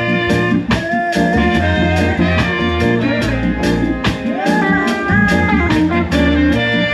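A live band playing a song: drums keeping a steady beat under bass and guitar, with a bending lead melody line on top.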